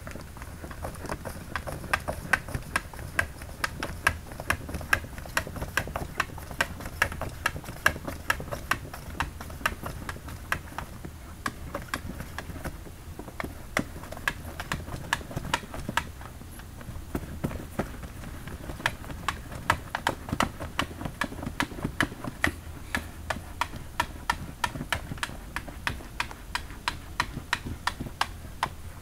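Cat pawing and clawing at a box with a plastic lid: a continuous run of irregular sharp clicks and taps, a few each second.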